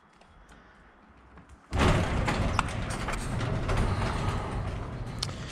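A motorized garage door opener starts up suddenly about two seconds in and runs steadily as the sectional door rolls up its track, with a low hum and occasional clicks.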